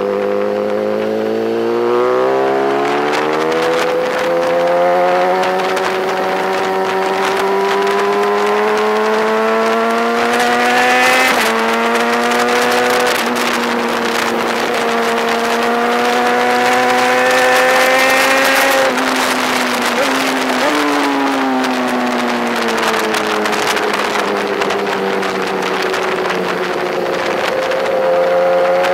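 BMW S1000RR superbike's inline-four engine running hard around a circuit. Its pitch climbs and falls in long sweeps, with sudden steps at gear changes about a third of the way in and twice around two-thirds in, then drops away and rises again near the end.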